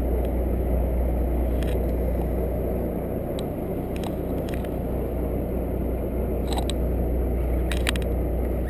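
Sportfishing boat's engine idling with a steady low rumble, with a few faint clicks.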